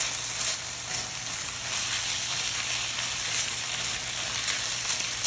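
Raw sliced chicken thigh sizzling steadily in hot oil in a cast-iron wok, stir-fried with a spatula that adds light, irregular scraping strokes.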